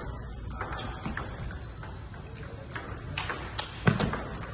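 Table tennis rally: the ball clicking off the paddles and bouncing on the table, the hits coming faster near the end. The loudest is a hard forehand hit with a low thud under it, about four seconds in.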